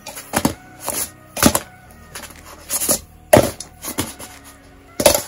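Frying pan clanking against the metal pan supports of a portable gas stove as it is lifted and set back down over the flame: a run of irregular sharp knocks, about one or two a second.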